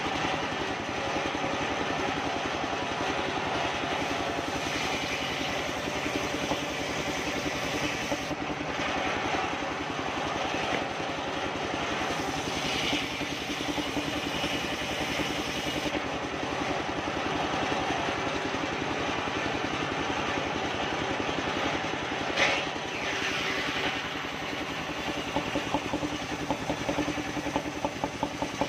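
Engine-driven circular sawmill running, its large blade ripping a soft kapok (randu) log lengthwise, over the engine's steady, rapid beat. One sharp knock about two-thirds of the way through.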